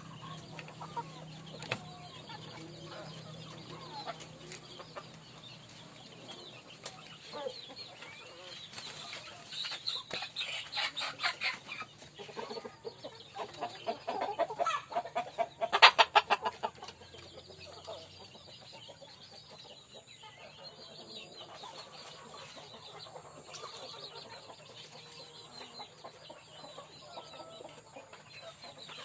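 A flock of ayam kampung (Indonesian native village chickens) clucking. Two louder runs of rapid, repeated calls come about ten and sixteen seconds in.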